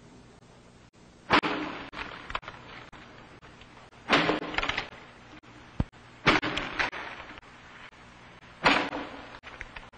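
Axe chopping into a tree trunk, played as a theatre sound effect: four heavy chops about every two and a half seconds, each trailing off with reverberation.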